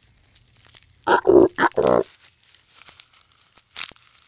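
Giraffe vocalising: three short, rough, noisy calls in quick succession about a second in. A brief sharp click comes near the end.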